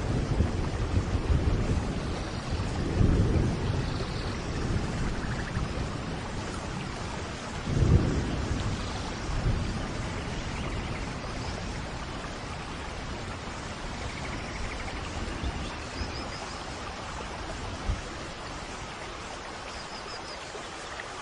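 Steady rain falling, with low rumbles of thunder swelling about three and eight seconds in, the second the loudest, then the rain carrying on more quietly.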